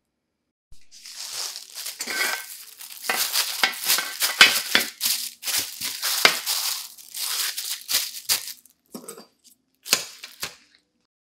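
Thin plastic sheeting crinkling and rustling as it is pressed into a metal tray, with many sharp crackles; a few separate short crinkles near the end.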